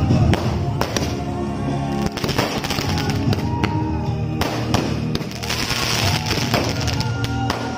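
Aerial fireworks crackling and popping in many rapid sharp cracks as they burst into sparks, with music playing under them.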